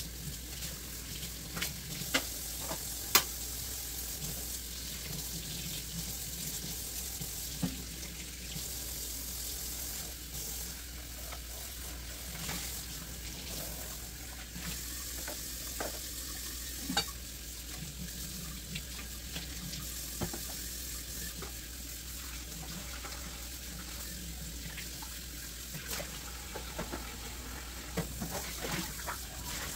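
Kitchen faucet running into a stainless steel sink while dishes are rinsed by hand, with a few sharp clinks of dishes and utensils, the loudest about three seconds in.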